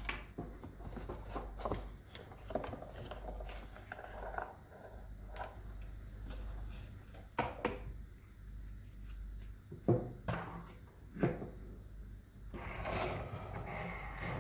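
Hands working on the vacuum cleaner's parts: rubbing and scraping with many small clicks, and two sharper knocks about ten and eleven seconds in.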